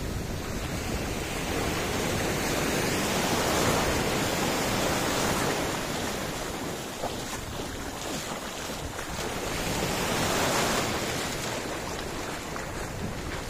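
Ocean surf washing around the legs of someone wading knee-deep, with wind buffeting the microphone. The wash swells twice: a few seconds in and again near the end.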